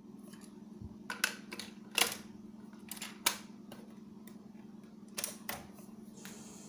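Plastic clicks and clacks of a cassette tape being loaded into a Retekess cassette player and its keys pressed, the loudest about two and three seconds in, over a low steady hum. Near the end a steady tape hiss begins as playback starts on the blank lead-in before the music.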